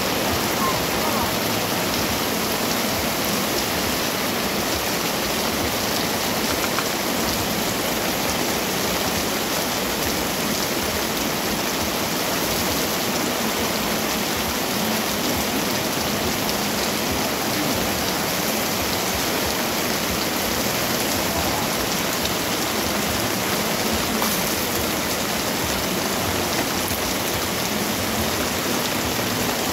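Heavy downpour: a steady hiss of rain on wet pavement and fabric awnings, with runoff pouring off a roof edge.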